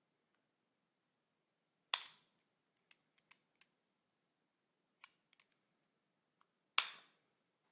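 Two sharp clicks about five seconds apart, with a few light clicks between, from the parts of an MG42 trigger group being worked by hand.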